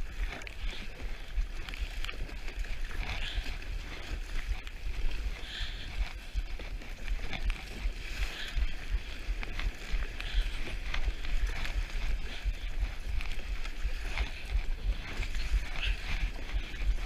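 Choppy sea water splashing and sloshing around a small plastic fishing kayak as it is paddled through rough ocean swell, with gusty wind rumbling on the camera microphone and sharper splashes every few seconds.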